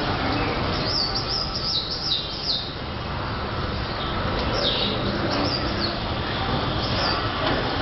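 Birds chirping in several bursts of quick, high, falling notes over a steady rumble from the robotic car-wash gantry as it travels along its overhead rails.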